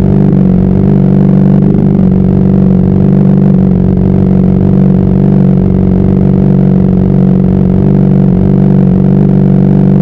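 Honda CBR600RR's inline-four engine running at a steady, unchanging note, with no revving up or down.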